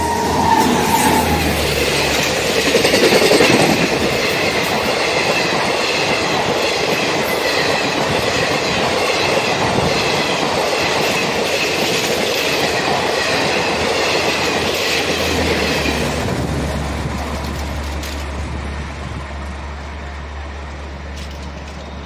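A passenger express hauled by a WAG-9H electric locomotive passing close at high speed. The locomotive's horn cuts off about a second in, then comes the steady rush and clatter of the coaches' wheels on the rails. It fades away over the last several seconds as the train recedes.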